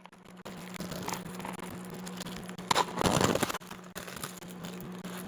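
Plastic film crackling and rustling as it is peeled off a hot microwave-meal tray, louder for a moment about three seconds in, over a steady low hum.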